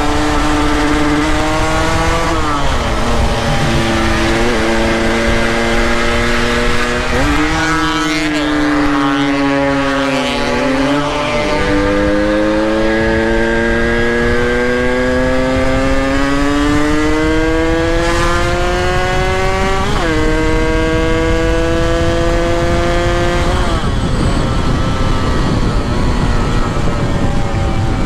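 Motorcycle engine under way, its pitch climbing slowly and dropping suddenly several times, over a steady low rumble of wind and road noise. The engine tone fades out near the end, leaving only the rumble.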